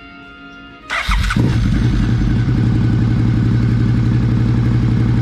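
Suzuki SFV650 Gladius 645 cc V-twin engine started up after its oil change: a brief burst of cranking about a second in, then it catches and runs at a steady idle.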